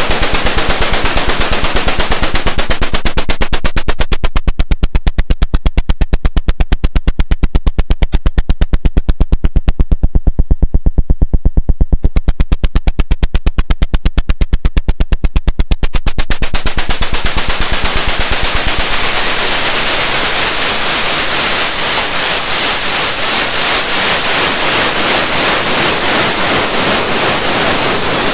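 Hive Mind Synthesis SODApressed Eurorack noise percussion module firing a fast, even stream of noise hits. About four seconds in the hits become short and clipped with gaps between them. From about seventeen seconds they lengthen into near-continuous static with a faint pulse, and the low end thins out soon after.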